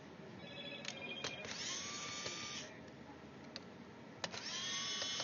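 Small electric screwdriver whining in two runs of about a second each, its pitch rising as it spins up, while backing out laptop heatsink screws. Brief clicks come before each run.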